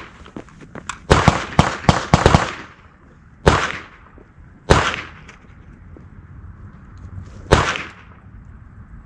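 AR-15 rifle shots: a quick string of about six shots, then three single shots spaced a second or more apart, each with a short echoing tail.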